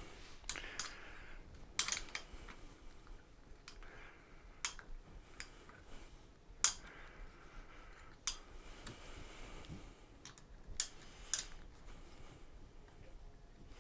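Scattered light clicks and taps of small hardware being handled and fitted at a mobility scooter's armrest, coming at irregular intervals, the loudest about halfway through.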